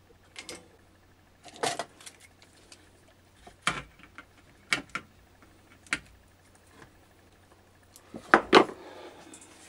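A few separate sharp clicks and knocks from a circuit board and its plastic computer case being handled on a workbench, the loudest two close together near the end.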